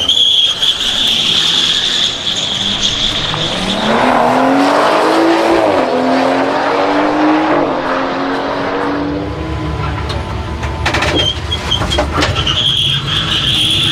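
Drag-strip run: a high, steady whine from the electric race car's Tesla drive unit, then a car engine revving up through a gear change and holding, with a low rumble behind it. The high whine comes back near the end.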